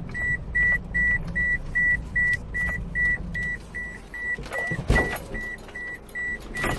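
A car's warning chime beeping steadily at one high pitch, about two and a half beeps a second, over a low cabin rumble, with a single thump about five seconds in.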